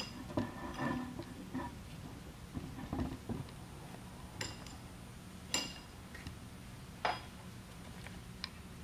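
Scattered metallic clinks and taps of a wrench against the steel head of a Crown PTH50 pallet jack hydraulic pump as a stuck valve housing is worked loose on its threads. A few clinks ring briefly, with softer knocks in between.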